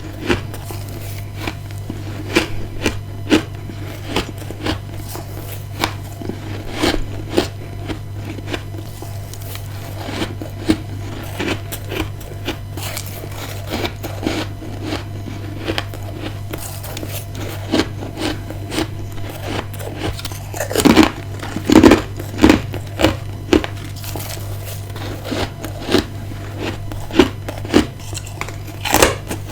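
Close-up crunching of ice being bitten and chewed: a steady run of sharp crunches, loudest and densest a little over twenty seconds in, over a constant low hum.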